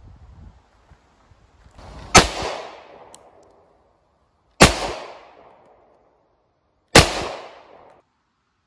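Ekol Firat 9mm blank pistol, a Beretta 92FS replica, firing three blank rounds about two and a half seconds apart. Each shot is a sharp, loud crack that tails off over about a second.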